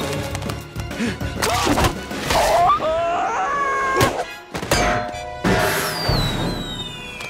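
Animated-film action soundtrack: orchestral music under slapstick sound effects, with a man's wordless yelling about two to three seconds in and several sharp thumps and knocks a little after.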